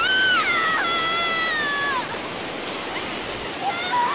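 A young woman wailing in grief over steady heavy rain: one long high cry that rises, holds and falls away, then a second cry beginning near the end.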